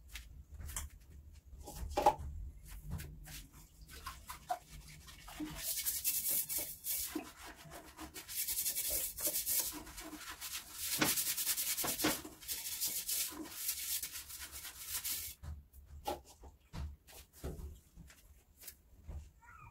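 Hand scrubbing of a hard bathroom surface: quick back-and-forth strokes for about ten seconds in the middle, with short pauses. Scattered knocks and clatters come before and after, the loudest about two seconds in.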